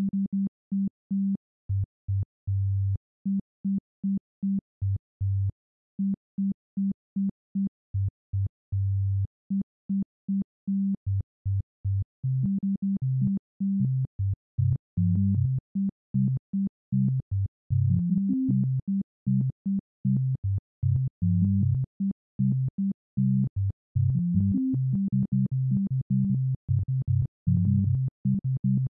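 Electronic background music of short, detached low synthesizer notes in a quick, bouncy rhythm, growing busier about twelve seconds in.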